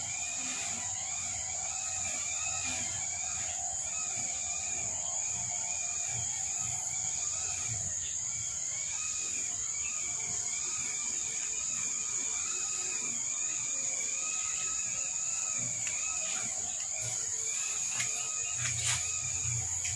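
Outdoor ambience: a steady high-pitched insect drone with a chirping call repeating evenly, a little more than once a second. A couple of sharp clicks come near the end.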